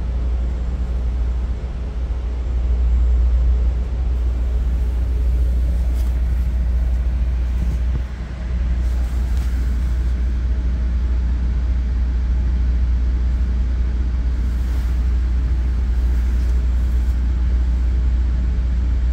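Steady low rumble inside a bilevel commuter coach coupled right behind an F59PH diesel locomotive: the locomotive's diesel engine working and the wheels running on the rails.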